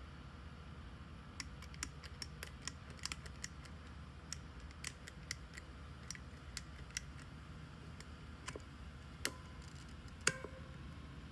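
Irregular small metallic clicks from a Master Lock 5422D key lock box being worked by hand in an attempt to open it without the code. A louder click about ten seconds in rings briefly.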